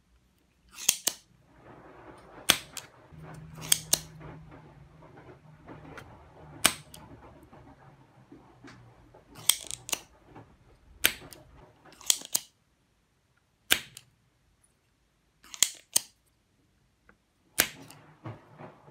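Spring-loaded desoldering pump (solder sucker) being cocked and fired, giving about ten sharp snaps, several in close pairs, as solder is sucked off the triac's joints on a washing machine control board.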